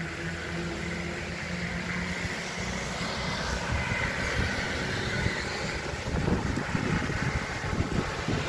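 Roadside traffic. A passing vehicle's engine hum fades away over the first couple of seconds, and an uneven low rumble builds near the end.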